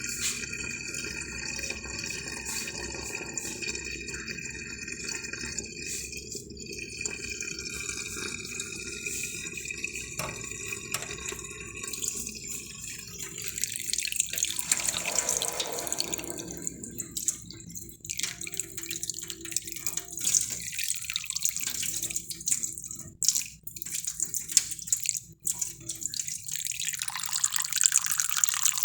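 Water running and splashing steadily, changing in flow now and then, with drips.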